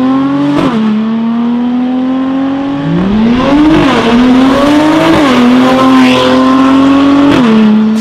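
Mercedes-AMG C43's twin-turbo V6 through an Fi valved aftermarket exhaust, accelerating away through the gears. The engine note climbs and drops back at each upshift, with a short crack at the shifts about half a second in and near the end.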